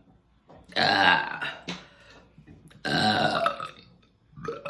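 Deep human burps after gulps of sparkling water: two long, loud ones about two seconds apart, then a shorter one near the end.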